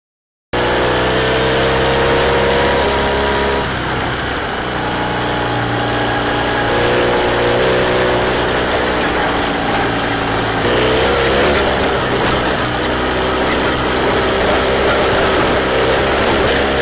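Ural sidecar motorcycle's flat-twin engine running under way, starting abruptly about half a second in, its pitch dipping and rising as the throttle changes, with scattered light clicks and rattles over the bumps.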